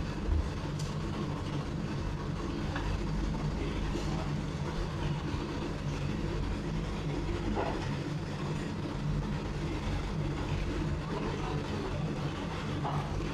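Steady low rumble and hum of conveyor-belt sushi restaurant ambience, machinery and room noise, with a few faint clicks.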